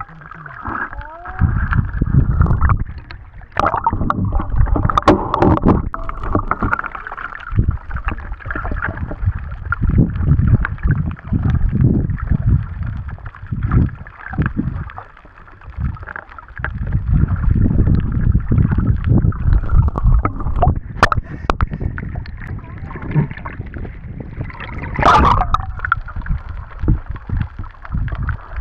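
Water noise picked up by a camera held underwater while snorkeling: bouts of low, muffled rumbling with scattered clicks and swishes, and one louder rushing burst near the end.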